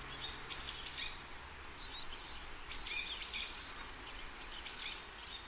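Small birds chirping: short high calls in quick clusters, over a steady background hiss.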